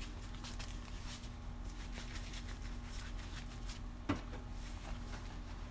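Small items being picked up and handled on a steel welding table: light clicks and rustles, with one sharper knock about four seconds in.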